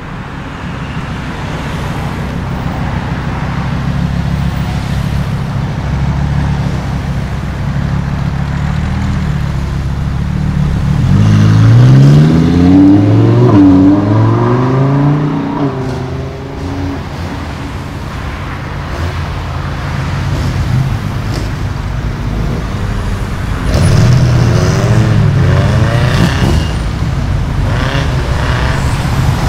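Italian sports car engines running low and steady, then accelerating hard about eleven seconds in: the pitch climbs, drops and climbs again through several gear changes. A second car pulls away with the same rising revs near the end.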